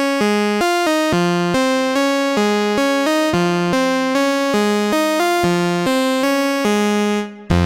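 Waldorf Pulse 2 monophonic analog synthesizer playing a preset as a quick stepping line of single bright notes, about three a second, rich in overtones. The line fades out about seven seconds in, and a lower bass patch starts right at the end.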